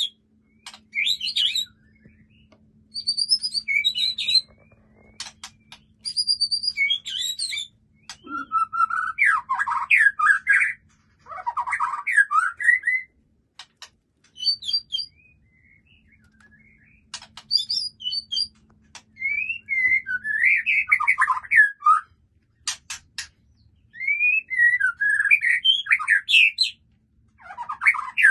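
White-rumped shama (murai batu) singing in separate bursts of varied phrases. The phrases include high whistles and lower warbled runs, with sharp clicking notes in between: a song packed with mimicked phrases (isian).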